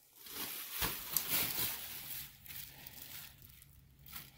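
Bubble wrap rustling and crinkling as hands pull it away from a packed rooftop tent, in uneven strokes that are louder in the first couple of seconds and fainter after.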